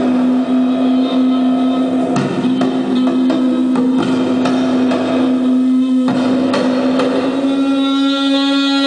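Instrumental music: a plucked string instrument struck in short notes over one long held note.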